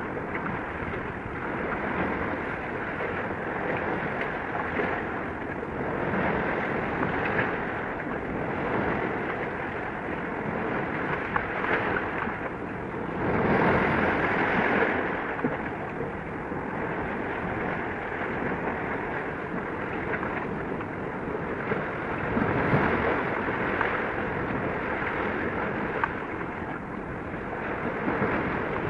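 Steady rushing of wind and sea water, with wind on the microphone. It swells louder about halfway through and again about two-thirds of the way in.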